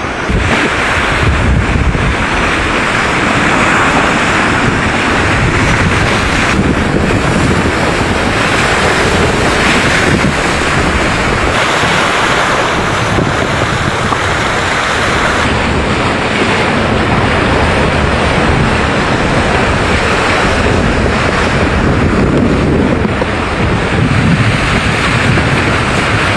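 Wind buffeting the microphone over a steady rush and splash of water along the hulls of a WindRider 17 trimaran surfing through choppy water.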